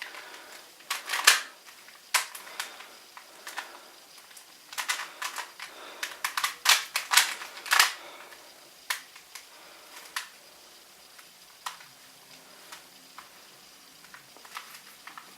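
Plastic Rubik's Cube being turned by hand: quick clicks and clacks of its layers snapping round, coming in runs of several turns with short pauses between. The turning is busiest in the first half, then thins out to single clicks with longer gaps.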